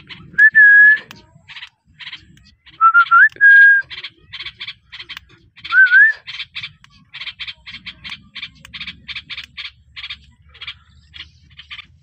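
Rose-ringed parakeet calling in a quick run of short, sharp chirps, about three a second, with several loud, clear whistled notes in the first half, two of them rising.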